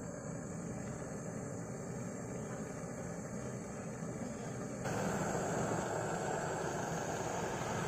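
Handheld canister gas torch burning with a steady hissing flame while heating a steel air-rifle chamber for tin soldering. About five seconds in the hiss becomes suddenly louder and fuller.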